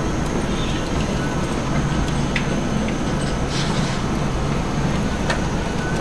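Steady hum and rumble of meat-processing line machinery, with a few sharp clicks and a brief hiss partway through.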